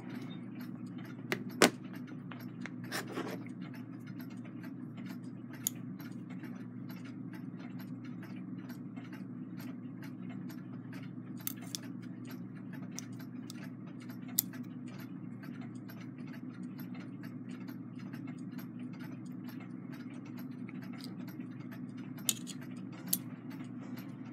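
Steady low hum with scattered light metallic clicks and taps at irregular times, a few of them louder, as small tools and brass clock-movement parts are handled while a stiff coil spring is worked into place.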